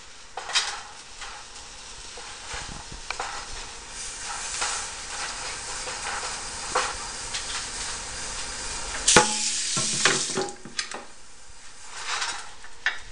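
Pieces of peeled Chinese yam scraped off a wooden cutting board into a frying pan with a little oil, knocking against the pan, with a light sizzle that builds as the oil heats. A sharp knock about nine seconds in is the loudest sound.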